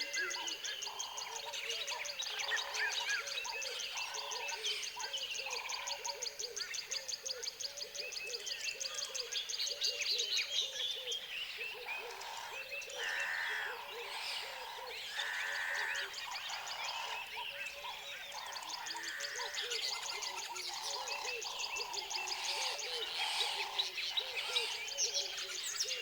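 Layered tropical forest ambience: many birds chirping and calling together. A fast, high pulsing trill runs for roughly the first ten seconds, and lower calls repeat a little more than once a second. Two longer, louder calls come about halfway through.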